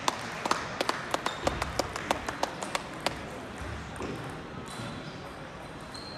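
Table tennis balls clicking off bats and tables in a large hall: a quick, irregular run of sharp ticks over the first three seconds, then only the low hall background of voices.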